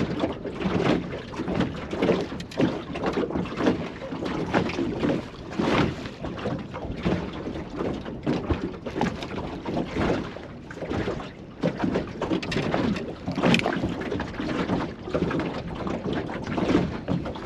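Wind buffeting the microphone and water slapping against a small boat's hull. The sound comes in irregular gusts, with many short knocks and rustles.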